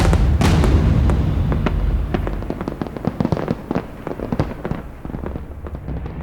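Rapid sharp crackling pops, dense at first, then thinning out and fading away toward the end.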